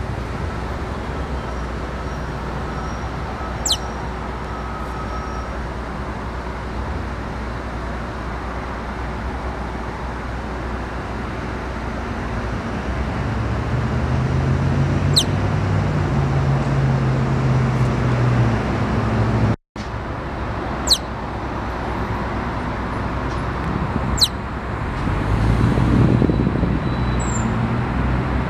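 Steady road traffic noise, swelling as vehicles pass about halfway through and again near the end. Four short, high squeaks from a Richardson's ground squirrel cut through it, each a quick downward sweep.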